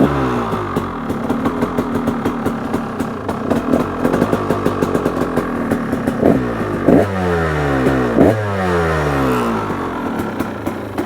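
KTM 300 XC single-cylinder two-stroke dirt bike engine being warmed up: the throttle is blipped once at the start and three more times in quick succession past the middle, the revs falling back to idle after each blip.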